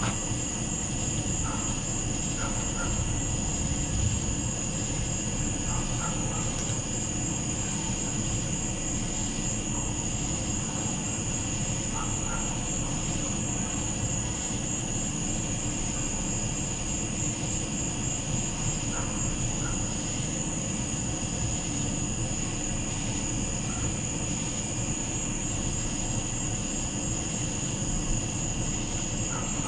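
Night insects, crickets or katydids, trilling: one steady, high, finely pulsing chorus over a low steady rumble, with a few faint short chirps scattered through.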